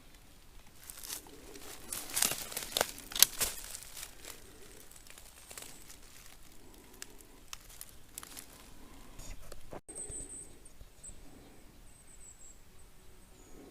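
Footsteps on a dry forest trail, with a cluster of sharp crackles and crunches from twigs, bark and needles underfoot, loudest a couple of seconds in, then quieter steady walking.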